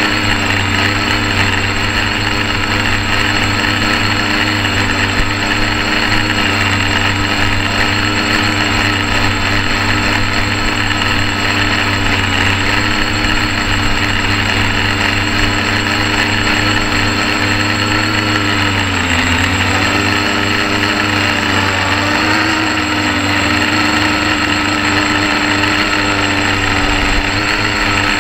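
Quadcopter's four electric motors and propellers whirring steadily, heard up close from a camera riding on the craft: a loud, many-toned hum. Its pitch dips and recovers about two-thirds of the way through as the motors change speed.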